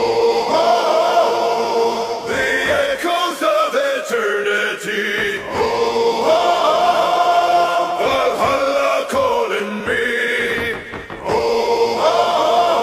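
Music: a male choir chanting long held notes in an epic Viking-style song, with brief breaks between phrases.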